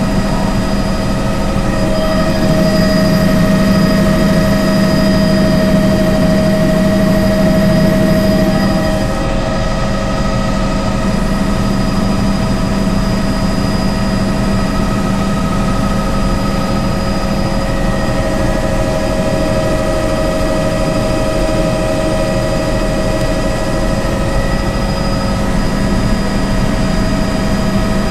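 Helicopter in flight heard from inside the cabin: a loud, steady drone of rotor and engine with several steady tones over it. It swells a little a couple of seconds in and eases back slightly about nine seconds in.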